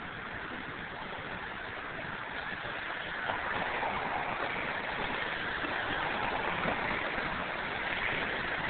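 Steady rushing noise of street traffic, swelling about three seconds in as a vehicle passes.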